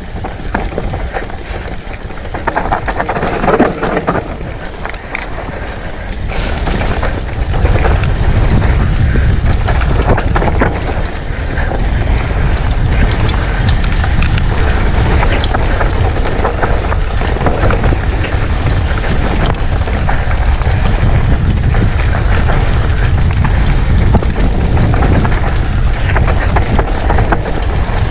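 Wind buffeting the microphone while a mountain bike rides a dry dirt singletrack, with tyres crunching on loose dirt and the bike rattling over rough ground. The low wind rumble grows heavier about seven seconds in and stays heavy.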